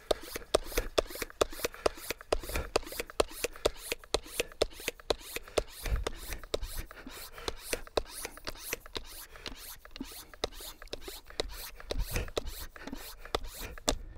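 Hand pump of a pressure sprayer being worked to pressurise its tank: a quick, regular train of rasping pump strokes, about three a second.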